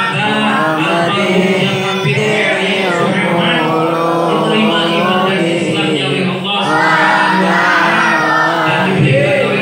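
A group of men and children chanting Islamic prayers together in unison, a continuous sung recitation led by a man on a microphone.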